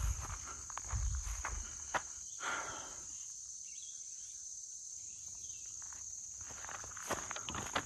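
Footsteps crunching on a gravel forest road, stopping about three seconds in and starting again near the end, under a steady high-pitched drone of insects.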